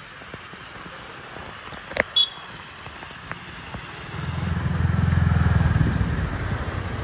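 A motor vehicle's engine swells up about four seconds in and eases back toward the end, over the rush of water spilling down a small concrete weir.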